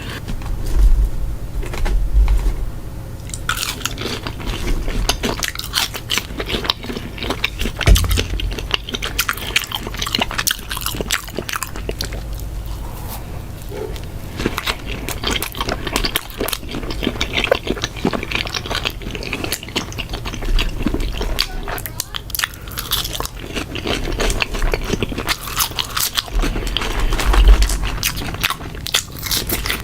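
Close-miked eating of chili dogs: biting and chewing, with dense mouth clicks and smacks that begin about three seconds in, after a few low thumps.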